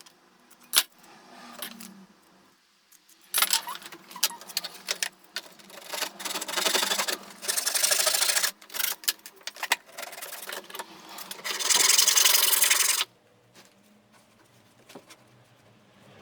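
Hand work on a piece of timber: a few clicks and knocks from handling, then several second-long bursts of rubbing and scraping, the last one cutting off suddenly.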